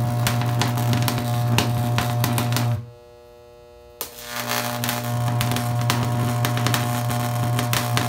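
High-voltage electric arc, burning yellow with sodium, buzzing with a strong mains hum and steady crackle. It cuts out about three seconds in, leaving only a faint hum, then strikes again with a sharp click about a second later and builds back to full strength.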